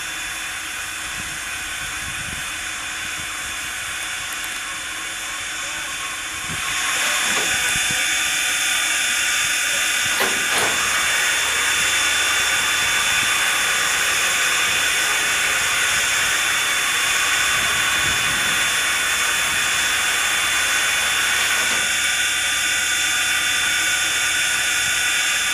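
Steady steam hiss from Strasburg Rail Road No. 90, a 2-10-0 steam locomotive, jumping suddenly louder about seven seconds in and then holding steady.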